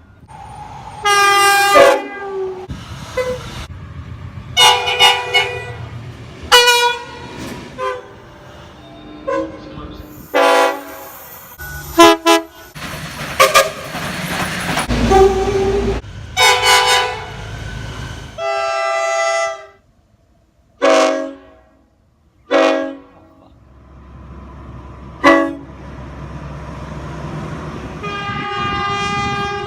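A run of train horns from freight locomotives and passenger trains: a dozen or so blasts, some short toots and some held for a second or two, each a chord of several notes, with the rumble of passing trains between them. The sound changes abruptly several times, as one horn gives way to another.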